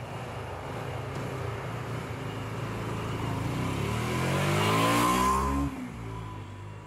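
Cruiser motorcycle engine running, then revving and accelerating away, its note rising in pitch to its loudest about five seconds in before dropping off sharply.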